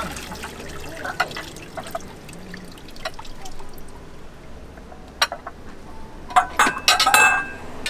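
Water splashing as ceramic ramen bowls are rinsed in a bucket, with small knocks, then a sharp clink and a cluster of louder ringing clatters of the bowls knocking together near the end.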